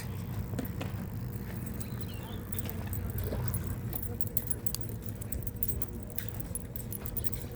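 Light irregular metallic clicking and jingling over a steady low rumble of outdoor noise on the microphone.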